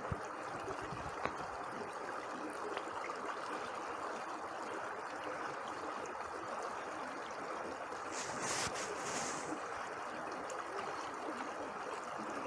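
Water of a stream running steadily, an even rushing noise, with a brief extra hiss about eight seconds in.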